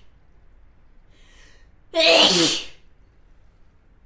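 A woman sneezing once: a faint, quick intake of breath about a second in, then one loud sneeze about two seconds in, its voiced cry sliding down in pitch as it ends.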